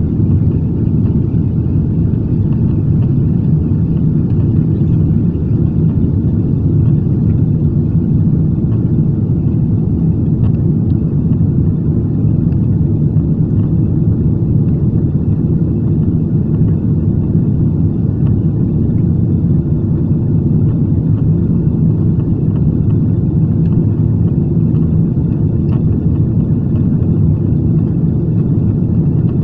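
Steady low rumble of a Boeing 777's engines and rushing air, heard inside the passenger cabin during the climb after takeoff.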